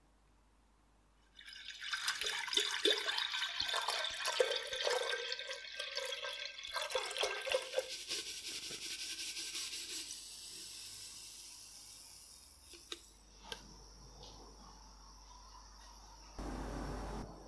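Water pouring and splashing into a glass jar to make a sodium hydroxide electrolysis bath, then a quieter steady hiss. A short low thump comes near the end.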